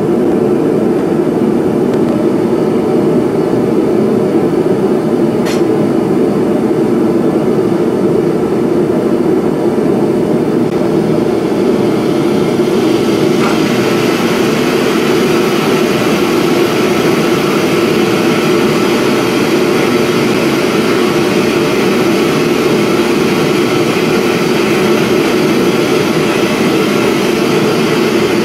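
Loud, steady roar of running forge-shop equipment, with no hammer blows. About twelve seconds in it turns hissier.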